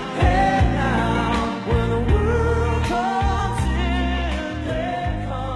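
Background music: a song with a singing voice over bass and a regular drum beat.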